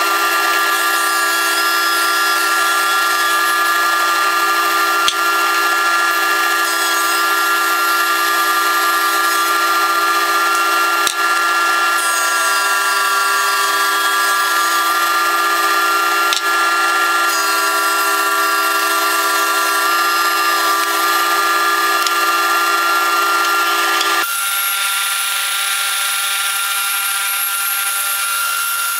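Thickness planer running steadily as walnut boards are fed through it, with a few sharp ticks. About 24 seconds in it gives way to a benchtop table saw running with a high whine as a maple board is guided along its fence.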